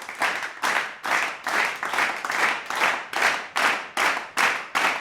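A crowd clapping together in a steady rhythm, about two claps a second.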